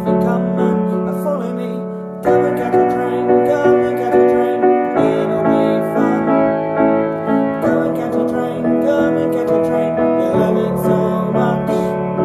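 Piano or keyboard playing sustained chords in a slow song, changing chord every few seconds, with a woman's voice singing along in places.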